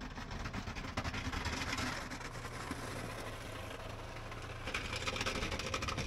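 Engine of a plow vehicle running steadily while it pushes snow with its front plow blade, under a hiss that grows louder near the end.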